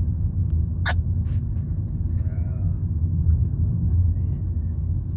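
Steady low rumble of a car heard from inside the cabin, with a single sharp click about a second in.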